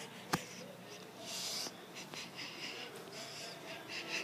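A person breathing close to the microphone: a run of short breathy hisses, with one sharp knock just after the start.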